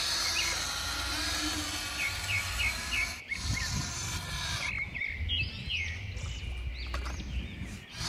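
Birds chirping in short repeated calls over a low rumble, with sharp breaks in the sound about three seconds in and at the end.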